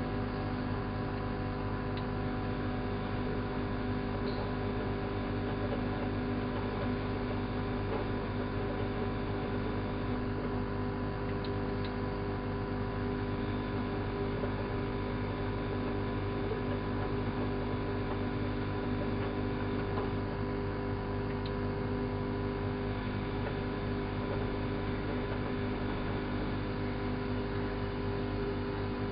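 Elin WM26AAA washing machine, built by Antonio Merloni, running with a steady, unchanging hum.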